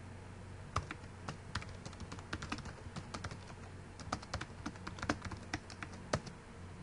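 Typing on a computer keyboard: quick, irregular keystrokes starting about a second in and stopping shortly before the end.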